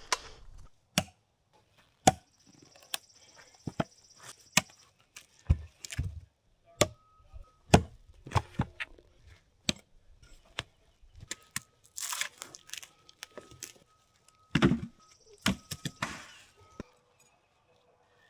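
Irregular sharp clicks and knocks with a few brief rustles: handling noises, with no engine running.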